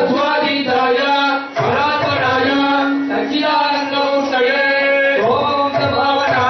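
Men singing a Hindu devotional bhajan in a chanting style, some notes held long.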